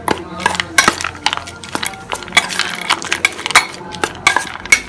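A steel spoon clinking and scraping against a stainless steel bowl while stirring roasted peanuts and chopped vegetables, with quick irregular clinks several times a second.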